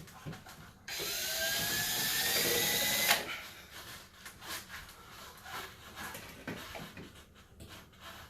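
A power drill runs for about two seconds on a sheet-metal A/C register box, its whine rising in pitch, and stops with a sharp click. Scattered small knocks and handling noise follow.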